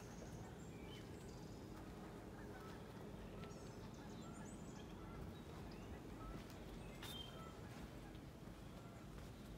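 Faint woodland birds chirping and calling here and there over a steady low rumble, with a sharp click about seven seconds in.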